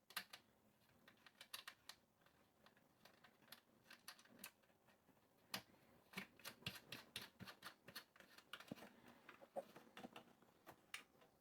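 Faint, irregular light clicks and taps of small plastic parts being handled and fitted onto an amplifier's front panel.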